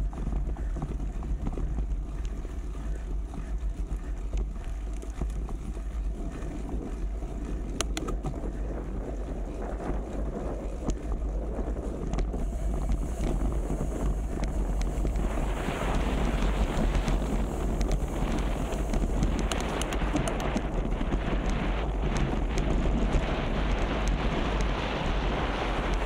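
Wind buffeting the microphone as a steady low rumble, with a broad rushing noise that grows louder about halfway through.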